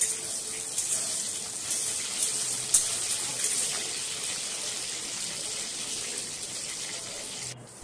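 Chopped garlic and green chillies sizzling in hot oil in a kadai, with a few clicks and scrapes of a spatula stirring them in the first few seconds. The sizzle cuts off suddenly near the end.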